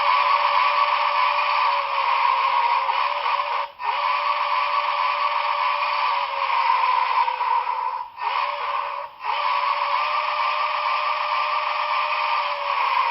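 The Paragon4 sound decoder of an HO-scale Broadway Limited Milwaukee S-3 4-8-4 model plays a recorded steam whistle through the locomotive's small speaker. It sounds a long blast, a second long blast, a short one and a final long one: the pattern of the grade-crossing signal.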